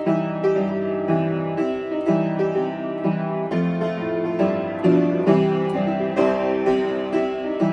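Upright piano played solo with both hands: a melody in the right hand over regularly repeated low notes in the left, at a lively, even tempo.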